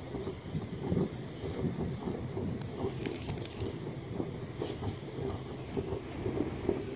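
Wind buffeting the microphone: an uneven, gusty low rumble, with a faint crackle about three seconds in.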